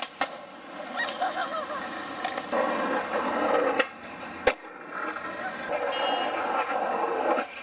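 Skateboard wheels and trucks scraping and rolling on rough stone and concrete, with sharp clacks of the board striking the ground; the loudest clack comes about four and a half seconds in. The noise changes character abruptly a few times.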